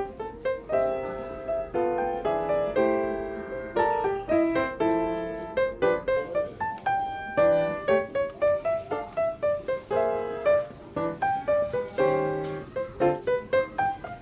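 Background music: a gentle solo piano tune in short, quick notes.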